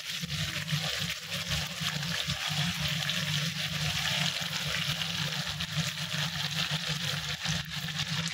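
Chicken legs sizzling steadily as they fry in hot oil in a pan, with a steady low hum underneath.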